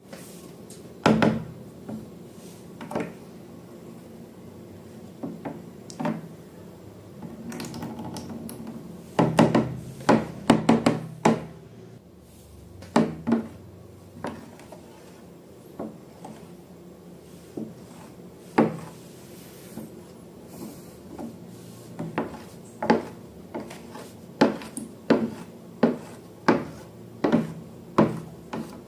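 A series of sharp knocks and taps on hard objects, scattered at first with a soft rubbing stretch, then settling into a regular run of roughly one tap a second in the last several seconds.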